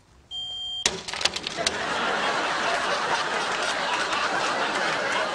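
A smoke detector's high electronic beep, cut off just before a second in by a hard smack, followed by a few sharp knocks. Then a studio audience laughs.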